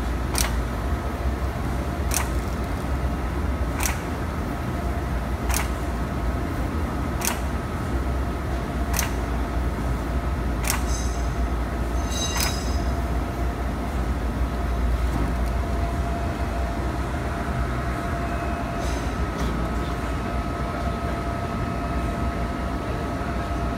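Allen Pack shrink-sleeve labeling machine running: a steady mechanical rumble with a constant whine, and sharp clicks about every second and three-quarters for the first ten seconds or so, then only a few scattered ones.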